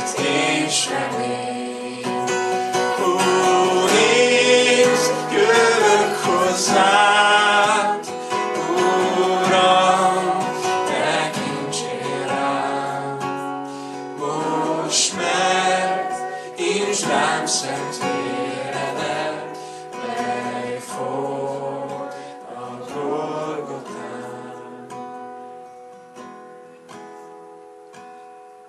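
A worship song sung to acoustic guitar strumming. About three quarters of the way through, the singing stops and the guitar plays on, growing steadily quieter.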